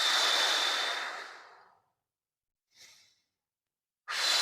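A man demonstrating a breathing exercise for nasal speech: breathing in through the nose and out through the mouth. A long breath out through the mouth starts sharply and fades away over under two seconds. A short, faint breath follows near the middle, and a second long breath out starts near the end.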